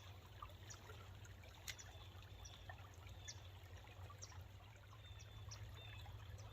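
Faint trickle of running water with scattered light ticks, close to silence.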